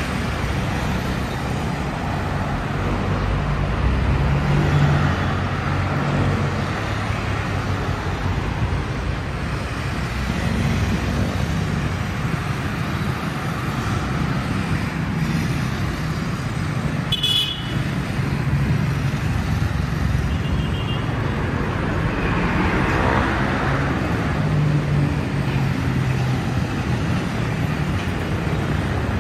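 Street traffic passing: motorcycles, motorcycle-sidecar tricycles, cars and a box truck, their engines running in a steady hum that swells and fades as each vehicle goes by. A brief high-pitched toot sounds about seventeen seconds in.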